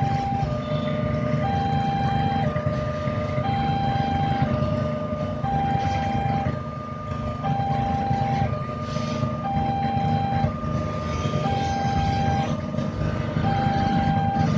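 Electronic two-tone warning alarm of a railway level crossing, a higher and a lower tone taking turns in a steady repeating cycle, over the low running of waiting motorbike and car engines.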